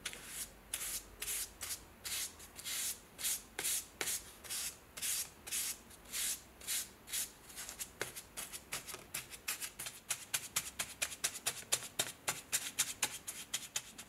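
A paintbrush stroking rust converter over a bare metal knife blade and handle plate: a run of short, dry bristle scrapes, about two a second at first, then quicker and sharper from about halfway.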